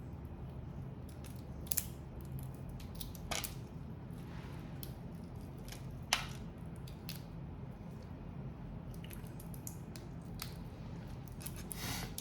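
Crab and prawn shells being cracked and cut open: scattered small clicks and a few sharp snaps, over a steady low hum.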